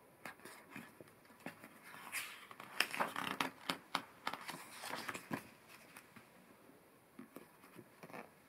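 Pages of a picture book being turned and smoothed flat by hand: paper rustling with many sharp clicks, loudest in the middle and thinning to a few ticks near the end.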